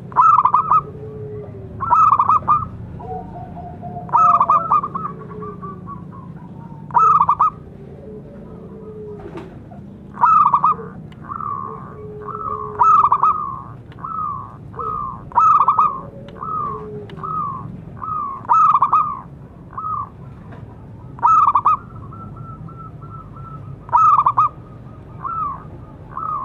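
Zebra dove cooing its staccato song, loud repeated phrases about every two seconds that come closer together after about ten seconds. Softer, lower-pitched coos sound between the phrases.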